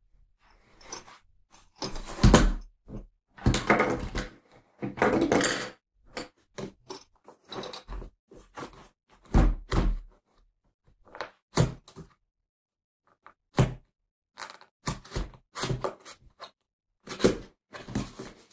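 A large set of colored pencils being handled on a wooden desk: irregular thunks and knocks, the loudest within the first ten seconds, with scattered quieter clicks after.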